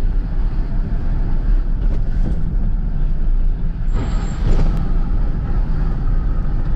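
Steady engine and road rumble of a car heard from inside the cabin as it drives downhill, with a brief hiss about four seconds in.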